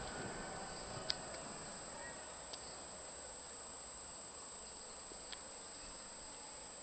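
The last rumble of a firework bang fades away at the start, leaving faint insect chirring and a steady high-pitched whine. A sharp click comes about a second in, with fainter clicks later.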